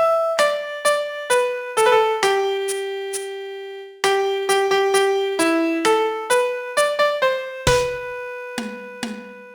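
Piano playing a song melody one note at a time, each note struck and fading, with one long held note about a third of the way in and a few low bass notes near the end.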